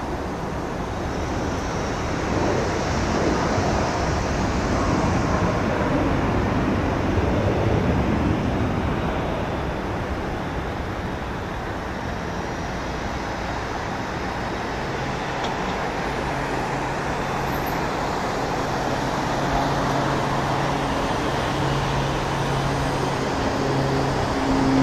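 The twin Pratt & Whitney PT6A-60A turboprops of a Beechcraft King Air 350 at takeoff power, heard from a distance as an even rushing noise. About halfway through, a steady low propeller hum comes in and grows louder near the end as the aircraft climbs out.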